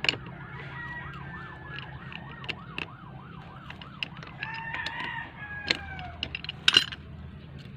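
Pipe wrench clinking against a metal pipe fitting several times, the loudest clinks near the end. A siren wails in the background over the first few seconds, and a rooster crows around the middle.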